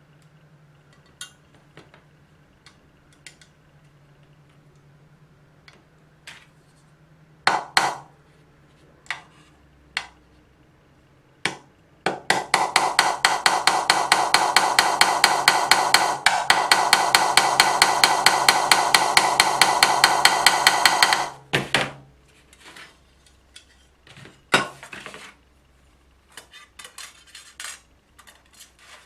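Small metal parts clinking and knocking, then a machine running for about nine seconds with a fast rhythmic clatter of about five beats a second, stopping suddenly before more knocks.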